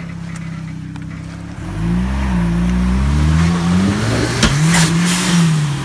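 Off-road 4x4 pickup's engine idling, then revving up under load about two seconds in as the truck crawls up a deep rut, its pitch rising and falling with the throttle. A sharp knock comes about four and a half seconds in.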